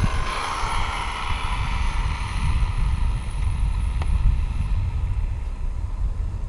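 Wind rumbling on the microphone, with a fainter hiss that fades away over the first few seconds.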